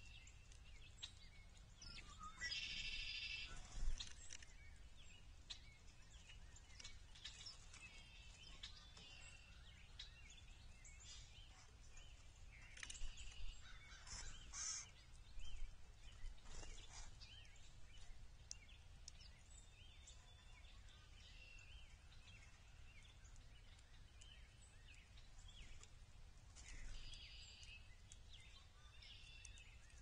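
Faint outdoor ambience over a low steady rumble, with scattered wild songbird calls and chirps: a short call burst about three seconds in, a busier cluster about halfway through, and a weaker one near the end.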